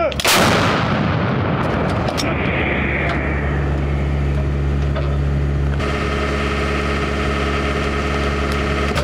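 A towed artillery howitzer firing a single round: one sharp blast about a quarter-second in that rolls away over a second or two. A steady engine hum runs underneath and changes tone about six seconds in.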